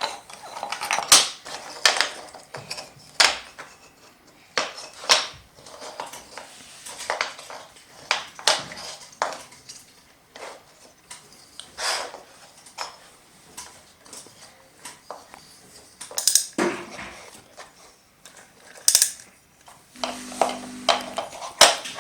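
BRIO wooden toy train track and pieces being handled, with irregular clicks, knocks and clatter as they are picked up and set down. A steady low hum starts near the end.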